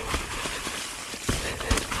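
Transition Spire alloy enduro mountain bike riding down a snowy trail: a steady rush of tyre and trail noise, with a couple of sharp knocks and rattles from the bike in the second half.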